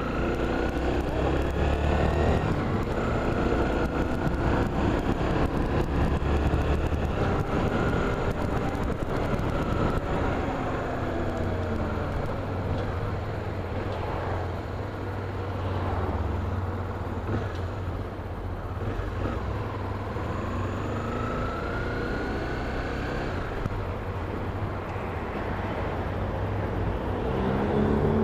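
A motor vehicle's engine running under way, with road noise; its pitch slowly rises and falls as it speeds up and slows.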